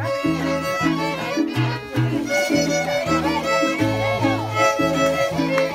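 Two violins and an acoustic guitar playing a traditional tune: the fiddles carry the melody over a steady alternating bass rhythm from the guitar.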